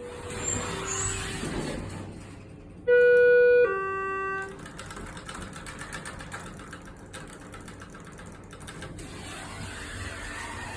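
Elevator chime sounding a falling two-note ding-dong, faint at the start and loud about three seconds in. After it comes a steady mechanical rushing noise with fine rattling.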